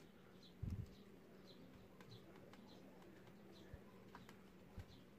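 Faint small-bird chirps, short and high, repeating about every half second over a low steady hum. A soft thump comes just under a second in, with a few light clicks later.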